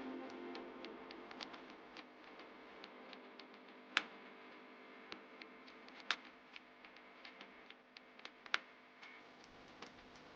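Scattered light clicks and taps, with three sharper, louder clicks about four, six and eight and a half seconds in, over faint background music that fades away early on.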